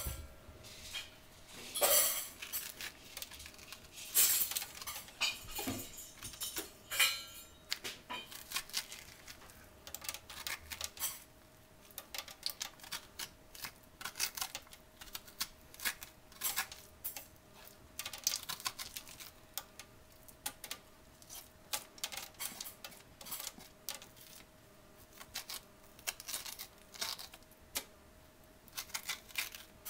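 Serrated grapefruit spoon scraping the seeds and stringy pulp out of a halved acorn squash: irregular quick scrapes and clicks, with a few louder knocks.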